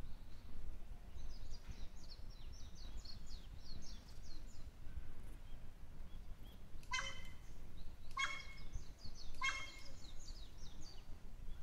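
Wild crow giving three short, harsh, bark-like calls about a second apart, mimicking a dog's "woof woof woof" bark rather than cawing. Faint high twittering of small birds runs before and around the calls.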